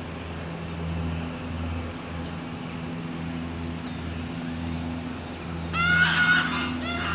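Geese honking, a loud run of calls starting near the end, over a steady low motor hum.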